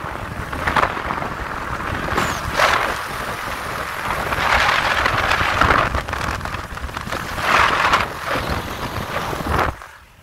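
Rushing noise of a car driving in light drizzle, swelling and easing several times, then dropping away just before the end.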